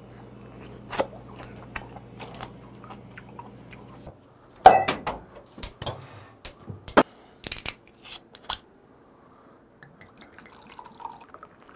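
Chewing and crunching on steamed gooseneck barnacles and limpets over a low steady hum, which cuts off about four seconds in. Then a loud crack and a quick run of sharp clicks and glass clinks as beer and soju bottles are knocked open, and faint soju pouring into a glass near the end.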